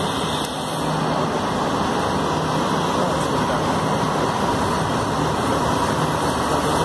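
Passenger train pulling in alongside a station platform: a steady, loud rumble as the carriages run past close by.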